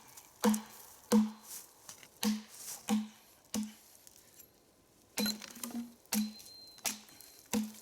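Hatchet chopping along the top of a log, cutting notches into it: about ten sharp strikes at a steady pace of roughly one and a half per second, each with a short low ring from the log. The chopping stops for about a second and a half near the middle.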